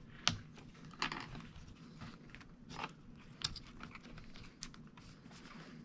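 Hard plastic clicks and creaks as a laptop battery pack is pried and pushed out of its bay with a screwdriver: scattered sharp clicks, the loudest about a third of a second in. The battery is stuck and does not come free easily.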